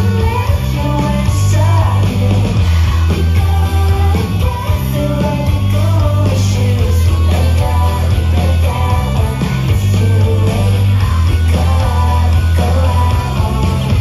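Live rock band playing over a PA: electric guitars and a heavy bass line under a singing voice, heard from within the crowd.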